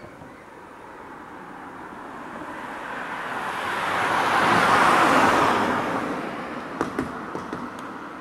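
A car passing by: a broad rush of road noise that builds for about five seconds, peaks and then fades away, with a few sharp clicks near the end.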